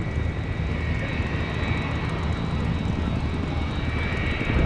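A turbine engine running steadily, a high whine held over a low rumble.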